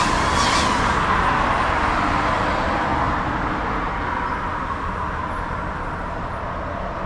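Garbage truck driving along the street, its engine and tyre noise steady and slowly fading as it moves away.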